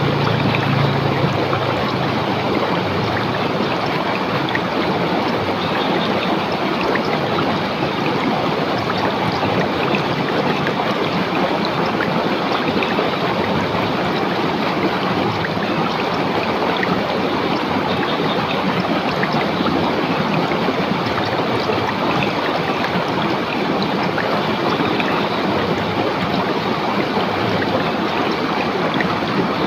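Shallow river water rushing and splashing over rocks in a steady, unbroken stream.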